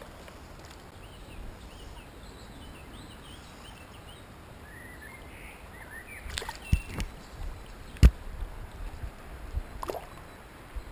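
Small birds chirping faintly, then water splashing and sloshing with several sharp knocks as the angler wades in the shallow river and works the line; the loudest knock comes about two-thirds of the way through.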